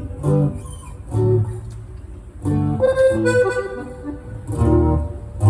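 A band's instruments playing without singing during rehearsal: short melodic phrases over plucked strings, with strong bass notes about once a second.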